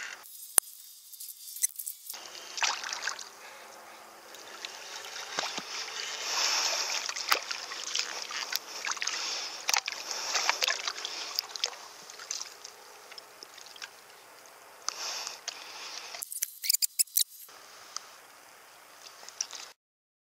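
Water splashing and sloshing as a hooked largemouth bass thrashes at the surface while it is played in, with many sharp clicks and pops; the sound cuts out briefly near the end.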